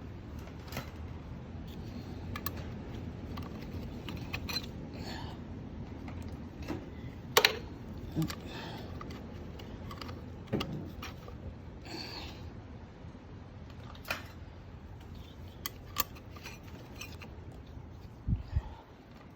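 Scattered light metallic clinks and knocks of clutch steel and fiber plates being handled and slid onto the clutch hub of a Yamaha YZ125, with one sharp clink about seven seconds in and a dull thump near the end.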